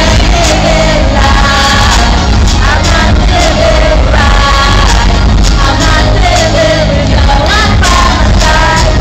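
Live pop music over an arena sound system, heard loud from the audience: heavy bass throughout under a sung vocal melody.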